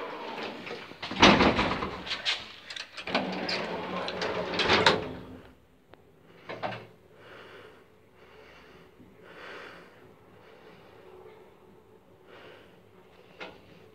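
An old Strommashina passenger lift's doors are closed with loud bangs and rattles, heard from inside the small cabin. After about five seconds it goes much quieter, to a low hum with a few faint swells and a sharp click near the end, as the lift car starts and travels.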